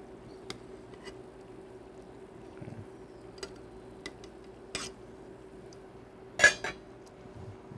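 Metal tongs clicking lightly against a stainless steel saucepan as chicken roulades are turned in poaching stock, then the pot lid clanks down onto the pan, two sharp knocks in quick succession about six and a half seconds in, the loudest sound.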